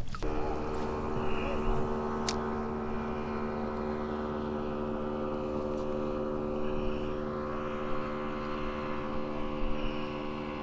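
A steady engine drone holding one unchanging pitch, with a single sharp click about two seconds in.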